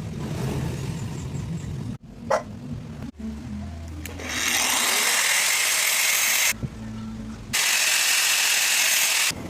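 A power tool running under load, heard as two loud stretches of harsh noise, each cut off abruptly by an edit, with quieter humming passages between them. Background music runs underneath.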